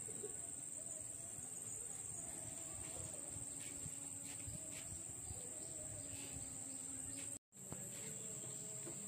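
A steady, high-pitched drone of insects, unbroken except for a brief dropout about seven seconds in.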